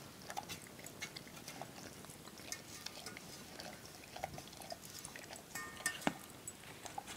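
A dog licking out an empty food bowl: a run of small wet licks and clicks of tongue against the bowl, with a sharper knock about six seconds in.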